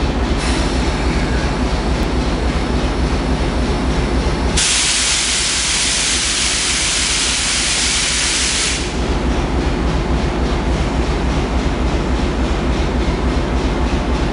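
DF11 diesel locomotive engine running steadily with a low, pulsing drone. A loud hiss joins it about four and a half seconds in and cuts off about four seconds later.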